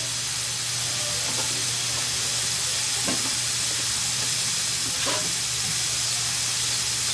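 Ground pork sizzling steadily as it sautés in a wide metal pan, being cooked through.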